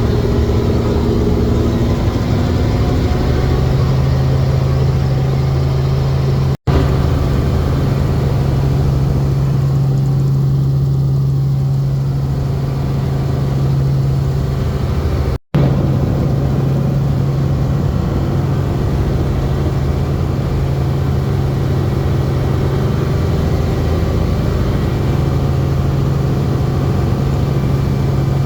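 Helicopter running, heard from on board: a loud, steady drone with a low hum. The sound drops out for an instant twice, about a quarter of the way in and just past halfway.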